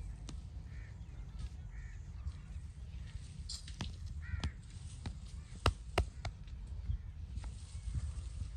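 Crows cawing a few times in the background over a low steady rumble, and several sharp smacks of hands on the body during a massage, loudest a little past the middle.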